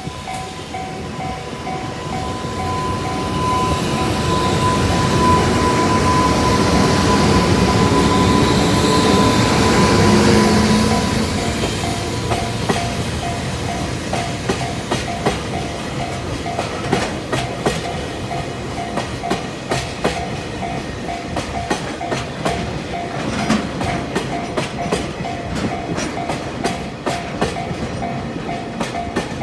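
A JR Freight EH200 electric locomotive hauling tank wagons and container flat wagons passes a level crossing. Its running noise swells and is loudest in the first ten seconds or so, then the wagons' wheels click rhythmically over the rail joints. The crossing's warning bell rings in a steady repeating pattern throughout.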